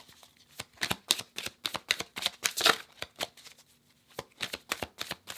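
A tarot deck shuffled by hand: a rapid, irregular run of crisp card clicks as the cards slide and flick against each other. There is a short lull a little before four seconds in.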